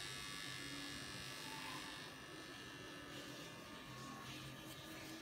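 Steady electric buzz with a hiss, a little louder for the first two seconds.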